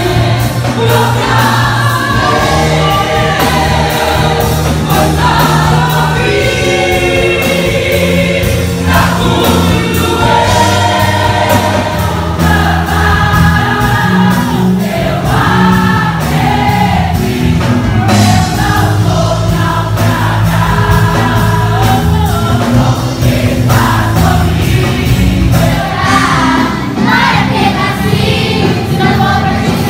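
Live gospel worship music: a group of singers with microphones leading a congregation in song over a band with a steady beat.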